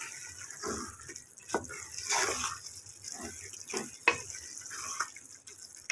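Wooden spatula stirring and scraping thick, soft-cooked urad daal in an aluminium pressure cooker pot: irregular wet squelching and scraping, with a couple of sharper knocks against the pot.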